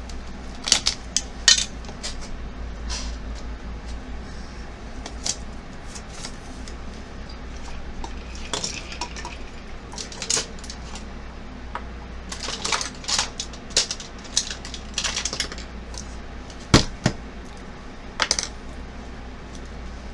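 Scattered clicks and clinks of makeup brushes, tools and product containers being picked up and set down, over a steady low hum.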